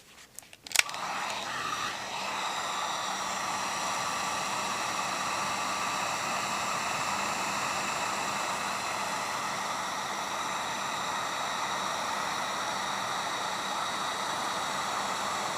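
Heat gun switched on with a click, then running steadily: the rush of its blown air with a steady fan whine, heating bitumen sound-deadener sheet.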